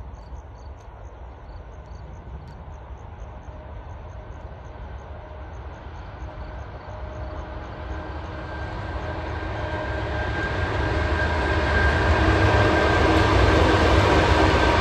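EP1 electric locomotive hauling a passenger train, approaching and passing close by: a low rumble with a steady electric hum of several tones. It grows louder from about seven seconds in and is loudest near the end.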